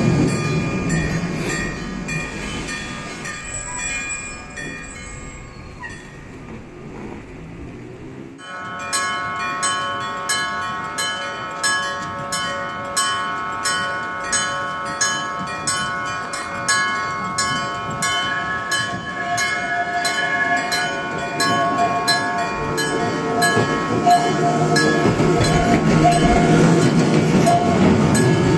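Level-crossing warning bell starts suddenly about eight seconds in and rings in an even, repeating rhythm. Before it, a passing tram's rumble fades away; near the end, a tram's low rumble builds again.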